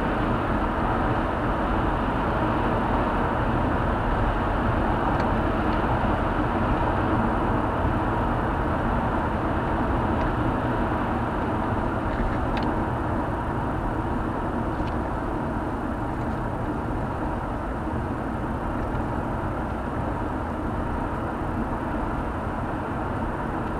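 Steady road and engine noise of a car at cruising speed, heard inside the cabin with the windows closed; it eases a little in the second half.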